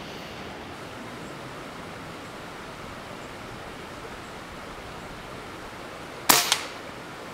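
An air rifle shot at a grey squirrel: one sharp crack, and a second smaller crack about a quarter of a second later, heard over a steady background rush.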